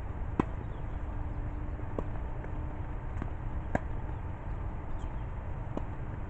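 Tennis ball being struck by rackets and bouncing during a rally on an outdoor hard court: a few sharp pops about every two seconds, the loudest about half a second in, over a steady low background rumble.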